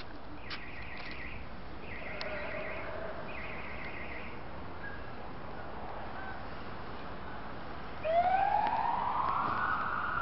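Steady city background noise with three short high trills in the first few seconds. About eight seconds in, a loud siren wail starts, rising in pitch and then holding.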